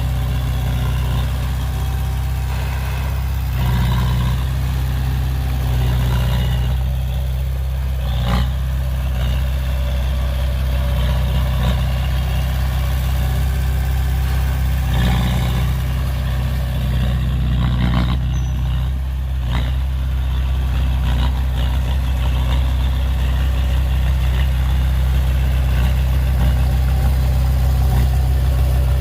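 Heavy diesel engine running steadily, with a few brief knocks about 8, 18 and 19.5 seconds in.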